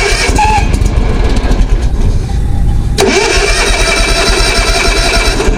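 Zero-turn mower's small gasoline engine being started on gasoline put into it by hand, running unevenly and then cutting out abruptly near the end. It acts as if it is out of gas, a sign of fuel starvation from a clogged carburetor jet or a sticking fuel solenoid.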